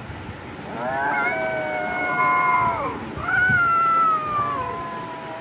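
Kitten giving two long, drawn-out meows, each about two seconds, held level and dropping in pitch at the end: begging calls as it reaches for a piece of raw chicken held out to it.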